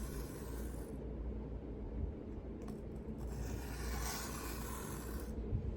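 Knife blade drawn across a sharpening stone in hand sharpening: soft, slow scraping strokes, strongest in the first second and again from about three to five seconds in, over a steady low hum.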